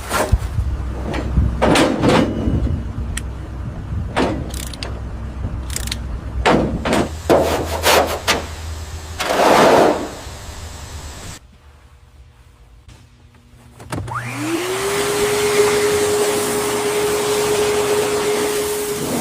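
A run of irregular noisy scrapes and bursts, then a short lull. After that a small motor spins up with a rising whine and runs steadily at a constant pitch.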